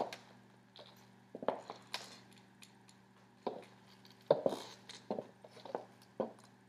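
Rose-gold Brian Atwood stiletto pumps tapping on a hardwood floor as the wearer walks a few steps and turns: sharp, irregularly spaced heel clicks, some in quick pairs, over a faint steady low hum.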